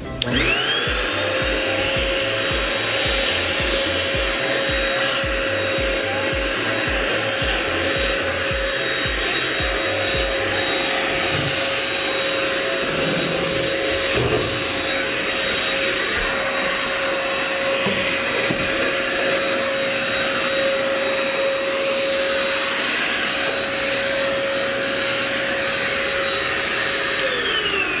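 JK-8 1000 W handheld vacuum cleaner switched on, its motor whine rising quickly to a steady high pitch. It runs steadily with a nozzle fitted, then is switched off near the end, the whine falling away.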